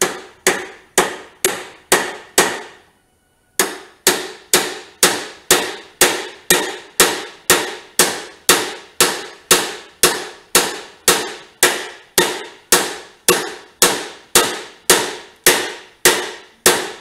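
Hammer blows on steel, about two a second, each sharp strike ringing briefly, with a short pause about three seconds in. The blows are driving a rusted-in fork tube of a 1972 Honda CT70 out of its triple tree clamp.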